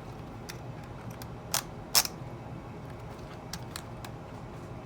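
Scattered light clicks and taps from handling the boot and its newly fitted buckle, with two louder sharp clicks about a second and a half and two seconds in.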